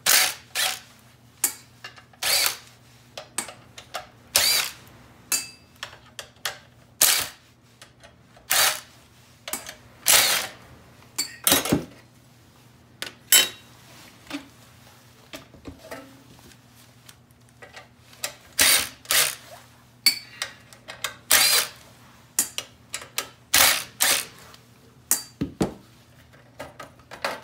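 Short, repeated bursts of a power screwdriver backing out the screws that hold the mounting brackets on a car navigation head unit, with clicks and knocks of the parts being handled between bursts. A low steady hum runs underneath.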